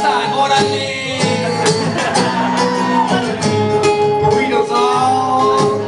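Live song: a guitar strummed steadily under a sung melody.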